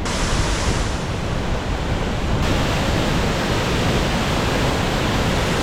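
Steady roar of Ban Gioc Waterfalls in rainy-season flood, mixed with wind driving the spray.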